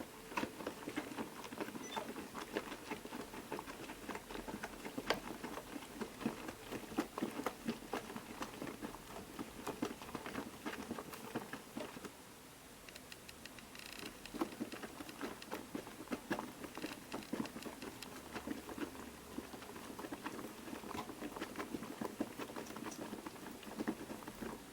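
DDR Piko Professional WS5522 washing machine in its first rinse: the drum turns and wet laundry tumbles and splashes, making a dense, irregular patter. The tumbling pauses briefly about halfway through, then resumes.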